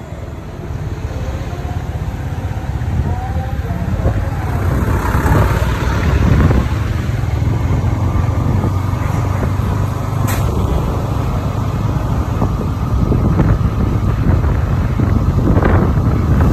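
A road vehicle on the move: steady low engine and road rumble, with a faint steady whine joining about halfway through.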